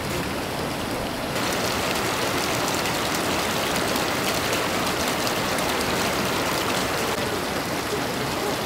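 Steady rushing of flowing water, growing brighter and a little louder about a second in.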